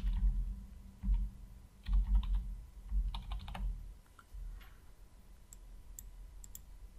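Typing on a computer keyboard: short runs of keystrokes over the first few seconds, then a few faint clicks near the end.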